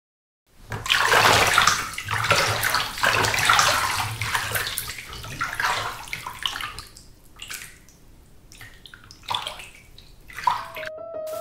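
Water sloshing and splashing in repeated surges, strongest at first and settling down, with two more splashes near the end. A piano melody starts just at the end.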